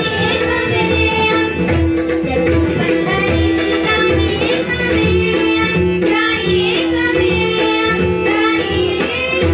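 Live Marathi abhang (devotional bhajan): a woman sings over a steady harmonium with tabla and pakhwaj drumming.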